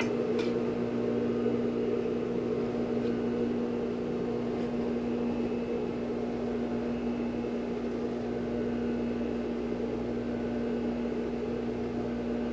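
Industrial overlock (serger) sewing machine running steadily while stitching along a fabric edge, with an even motor hum throughout.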